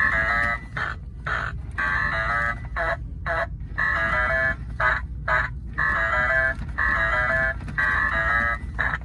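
Electronic sound effect from a battery-powered animated Halloween decoration: a repeating alarm-like pattern of tinny stepping beeps, alternating with short hissing bursts, over a steady low hum.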